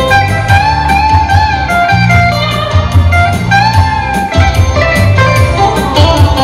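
Background music: an electric guitar tune with a steady beat and bass, in a bluesy style.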